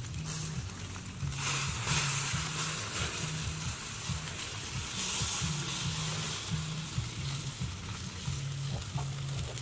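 Whole fish roasting on a stick rack over smoking charcoal embers, sizzling and hissing. The sizzle swells about a second and a half in and again around five seconds.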